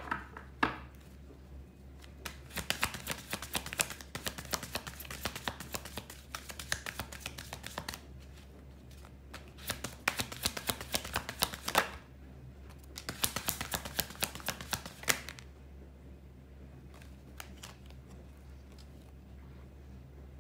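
Tarot cards gathered up with a couple of sharp knocks, then a deck shuffled by hand in three bursts of rapid card flicking, followed by a few scattered clicks as the deck is handled and a card is laid on a wooden table.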